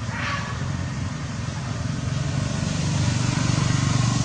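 A motor vehicle engine running with a steady low hum, growing louder over the last couple of seconds.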